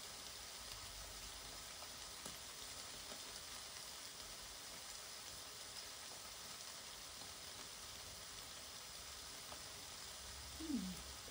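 Lamb chops sizzling faintly in a closed Tefal OptiGrill Elite contact grill: a steady hiss with occasional small pops. Near the end, a brief low sound falls in pitch.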